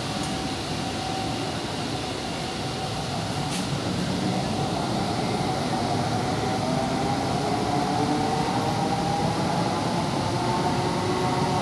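Electric metro train running, heard from inside the passenger car: a steady rumble of the running train, with a motor whine that rises slowly in pitch and grows a little louder from about five seconds in.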